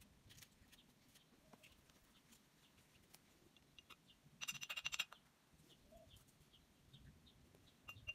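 A paintbrush rattling against the inside of a glass mug of rinse water: about half a second of rapid clinking with a ringing glass tone, a little past the middle.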